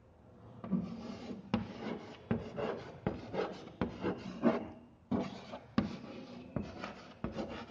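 Chalk scraping on a blackboard as words are written, broken by several sharp taps of the chalk against the board.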